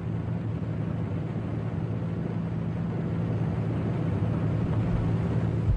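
Propeller-driven transport aircraft engines droning steadily, a low even hum over a hiss.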